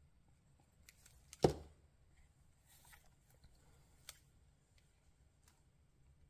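Quiet handling of a paper cutout on a journal page, with a few faint clicks and a soft scratchy rustle. One sharp knock about one and a half seconds in, as a small plastic glue bottle is set down on the table.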